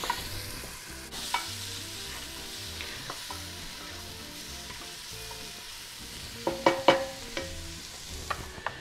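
Chopped onion sizzling in hot oil with curry spices in a non-stick pot, stirred with a spatula that scrapes and knocks against the pot. A cluster of louder scrapes and knocks comes about six and a half seconds in.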